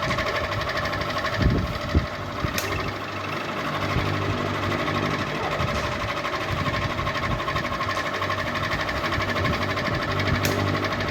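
Ceiling fan running with a steady hum and a fast, even mechanical rattle. Two low thumps come about a second and a half and two seconds in.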